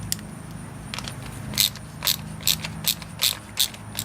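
Hand ratchet clicking as a fitting at a new fuel filter is worked: about six sharp clicks at an even pace, packed into the middle two seconds, over a low steady hum.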